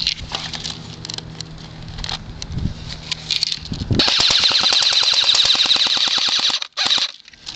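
Airsoft AK-47 replica firing a rapid full-automatic burst of about three seconds, starting about four seconds in, followed by a brief second burst. Before it, a low steady hum with a few scattered clicks.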